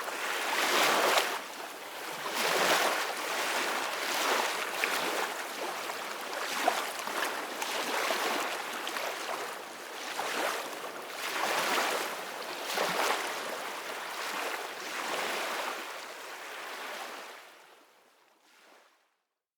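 Ocean surf breaking and washing up a beach in repeated surges every second or two. It fades out near the end to near silence.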